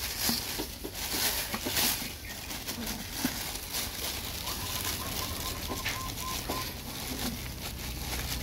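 Plastic bags rustling as they are handled, with a few clicks and light knocks. A faint high steady tone, broken into short pieces, runs for about two seconds midway.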